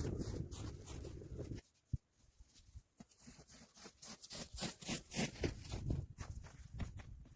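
Low wind rumble that cuts off about a second and a half in, a single click, then a run of irregular crunching steps through snow.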